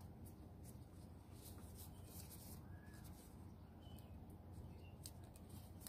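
Near silence: a faint steady outdoor background with light rustling and clicking of a wire being handled, and a few faint bird chirps in the middle.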